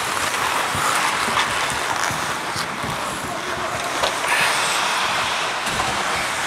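Steady scraping hiss of hockey skate blades on rink ice, mixed with air rushing over a helmet-mounted camera's microphone, with a few faint clicks of sticks or puck in the play.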